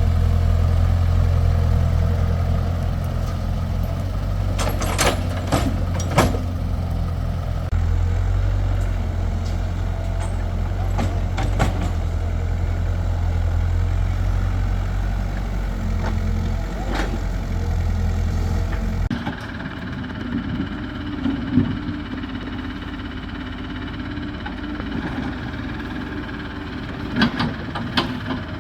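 Heavy diesel machinery engine running steadily, with scattered sharp metallic knocks. About two-thirds of the way through, the sound changes abruptly to a quieter engine hum with more knocks.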